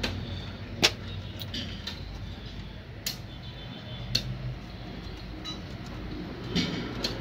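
Scattered small metallic clicks and taps as Denso common-rail fuel pump parts are handled and pressed together by hand on a steel workbench, the sharpest about a second in, over a steady low rumble.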